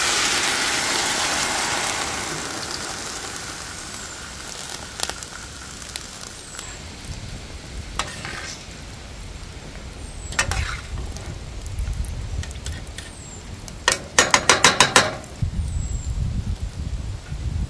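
Sliced onions sizzling in sauce in a frying pan on a charcoal grill, the sizzle strongest at the start and dying down within a few seconds. Metal tongs click against the pan a few times, with a quick rattle of clicks near the end.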